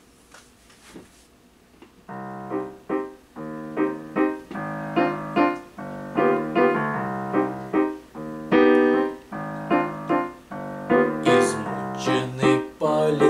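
Digital keyboard with a piano sound, played as a chordal introduction that starts about two seconds in after a few faint clicks. Near the end a man's voice begins singing in Russian over the piano.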